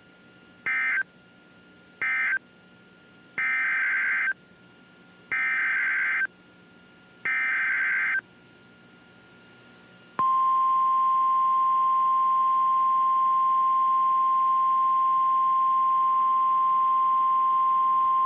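Emergency Alert System signalling from a NOAA Weather Radio broadcast. Two short buzzy end-of-message data bursts come first, then three longer SAME header bursts for the next warning. From about ten seconds in, the steady single-pitch 1050 Hz weather radio warning alarm tone sounds, announcing a new tornado warning.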